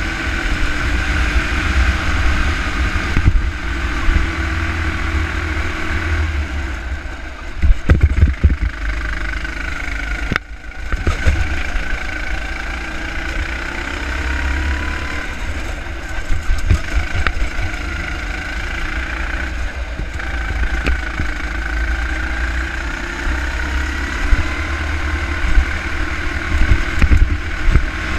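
Go-kart engine running hard through a lap, heard onboard, its pitch rising and falling as the driver accelerates and lifts for the corners, over a heavy low rumble. A few sharp knocks and a brief dip come about a quarter to a third of the way in.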